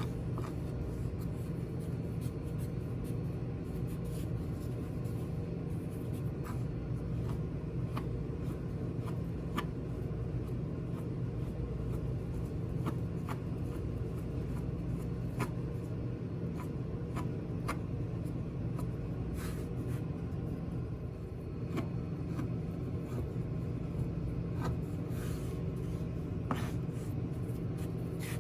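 Rolling pin rolling chinchin dough on a floured board, a steady rubbing with scattered light clicks, over a constant low hum.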